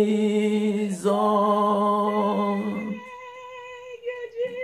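A solo voice singing a slow worship chant, holding the word "Jesus" as one long note that drops away about three seconds in, leaving a softer held tone.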